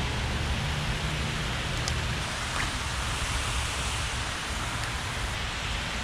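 Steady rushing of water pouring over a concrete spillway weir, with a low rumble underneath.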